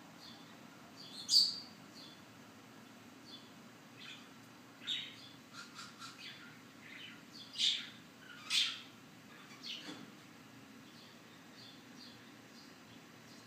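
Small birds chirping: a handful of short, high chirps spread over several seconds, the loudest about a second in and two more strong ones close together around the eight-second mark.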